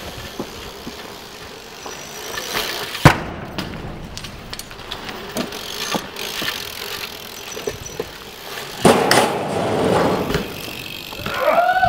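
A BMX bike on concrete: tyres rolling with a steady rush, one sharp clack of an impact about three seconds in, the loudest moment, and a louder rough scraping stretch around nine to ten seconds in.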